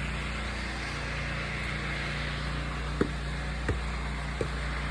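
An engine running steadily with a low hum, with light clicks about every 0.7 s starting about three seconds in.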